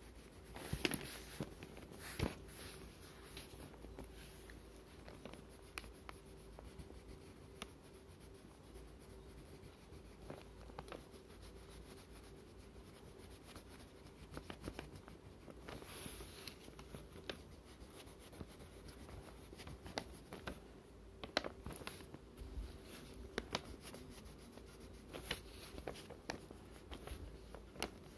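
Faint scratching and rubbing of a crayon on drawing paper as an area is coloured in, with scattered light ticks and a few louder taps and paper rustles, two of them about a second or two in.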